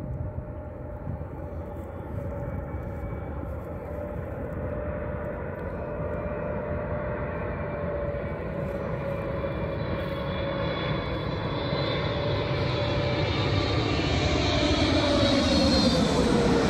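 Boeing 777 jet airliner flying low on final approach with its landing gear down. The engines' steady whine and rushing noise grow louder as it comes overhead, and the whine drops in pitch near the end as the plane passes.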